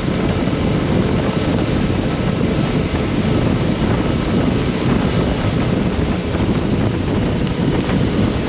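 Steady wind rumble buffeting the microphone while riding a motorcycle.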